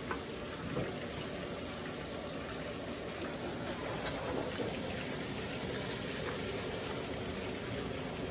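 Steady hiss and rumble of deep-frying: chicken pieces cooking in a wok of hot oil over a gas burner.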